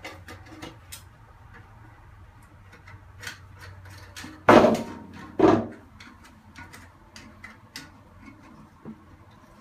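Small plastic clicks and handling noises while the new toilet fill valve's plastic lock nut is screwed on by hand under the tank. Two loud knocks come about a second apart near the middle.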